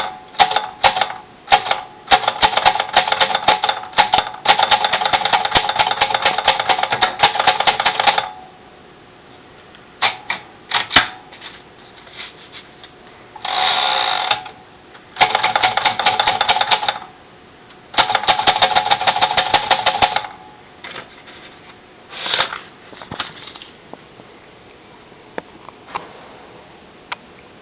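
Moskva manual portable typewriter being typed on: runs of fast key strikes clattering, broken by pauses, thinning to a few single clicks near the end.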